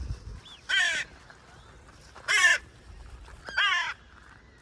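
A crow cawing three times, about one and a half seconds apart. Each caw is short and harsh, with a downward slide in pitch.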